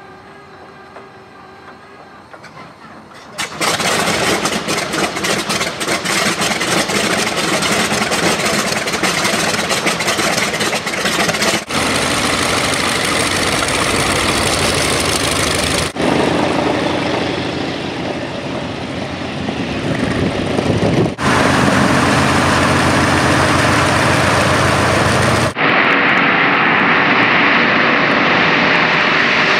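A Super Corsair's large radial aircraft engine. It starts quieter for about three seconds, then catches and runs loudly, and edited stretches follow of it running at taxi and then on the takeoff roll.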